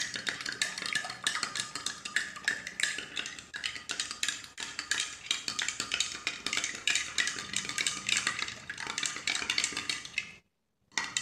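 Metal spoon clinking and scraping rapidly against the inside of a drinking glass while stirring soda ash into water to dissolve it into developer solution; the clinking stops abruptly about ten seconds in.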